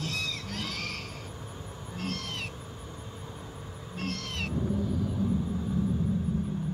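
Recorded dinosaur calls from animatronic feathered raptor figures: three short, high calls about two seconds apart, followed by a longer, louder low growl over the last couple of seconds.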